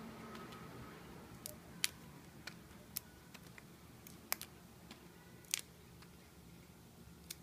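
Hand-held chestnut peeler cutting raw chestnut shells: about nine sharp, crisp clicks and snips, spaced irregularly as the jaws bite through the shell.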